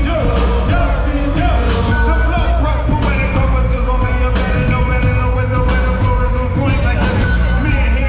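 Loud live band music heard from the crowd, with drums, a heavy bass line and guitar, and a vocalist singing into a microphone over the PA.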